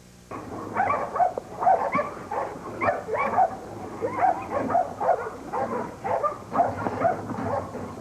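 American bulldog barking repeatedly, about two barks a second, cutting in abruptly just after the start.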